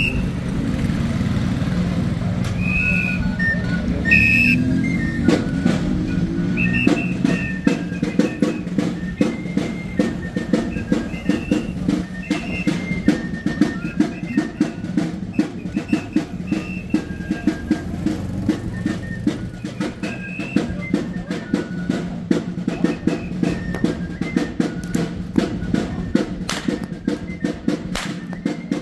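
Traditional torito dance music on flute and drum: short high flute notes play a melody, and a steady drumbeat joins in about five seconds in and keeps going.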